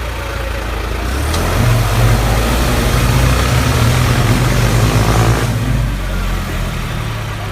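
A vehicle engine revving up under load, its pitch rising, loud for about four seconds, then falling back suddenly near the end.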